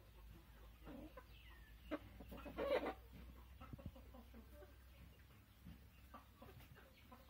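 A flock of chickens clucking softly while they forage, with one louder call about two and a half seconds in.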